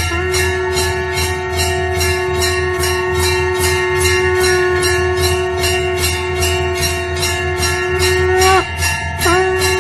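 Conch shell (shankh) blown in one long steady note, which breaks off briefly near the end with a dip in pitch and then starts again. Under it a temple bell is rung rapidly, about four strikes a second.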